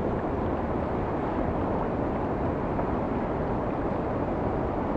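Steady rush of whitewater churning below a weir, an even roar of moving water with no breaks.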